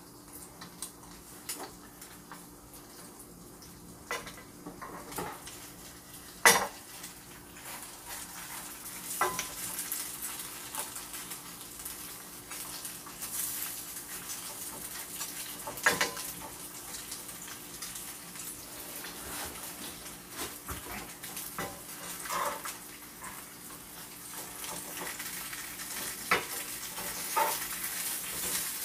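Breaded pork cutlet sizzling in a nonstick frying pan, with metal tongs and kitchen scissors clicking and scraping against the pan as it is cut into pieces. The sharpest clack comes about six seconds in, and the sizzle grows stronger in the second half.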